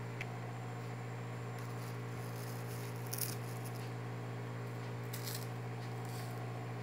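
Steady low electrical hum with several brief soft rustles, the loudest about three seconds in, from hands handling saba bananas and their peels.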